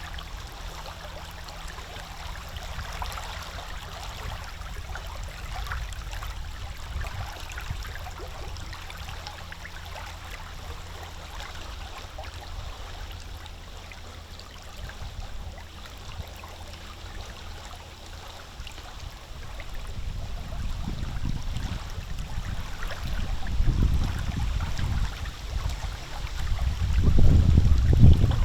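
Small lake waves lapping and splashing at the shore, with wind rumbling on the microphone; the gusts grow stronger over the last several seconds.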